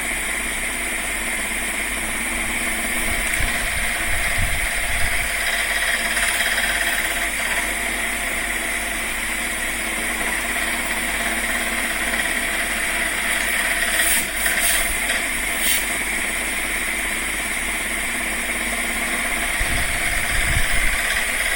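Steady mechanical drone of a running motor, with a few faint clicks about fourteen to sixteen seconds in.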